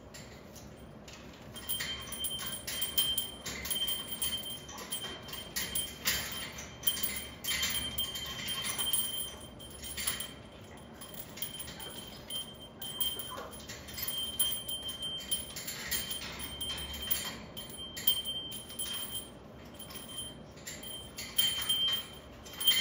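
Small bell on a parrot's hanging cage toy jingling in irregular flurries as the parrot swings and tugs on it, starting about two seconds in, with short pauses between rings.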